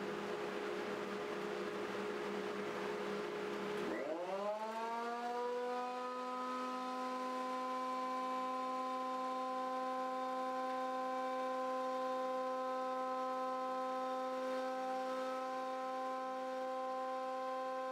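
JET JJP-8BT jointer-planer's 13-amp motor and cutterhead running in planer mode under load, planing a mahogany board. About four seconds in, the sound changes from a rough noisy run to a steady whine that rises in pitch and then holds.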